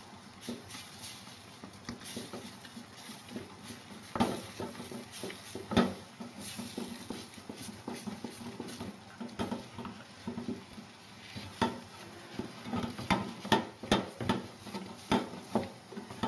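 Wooden spoon stirring and beating thick choux paste in a stainless steel saucepan, with irregular knocks and scrapes of the spoon against the pan. The knocks are louder around four to six seconds in and again through the second half. The flour, water and butter dough is being cooked and stirred on the heat until a crust forms on the pan's bottom.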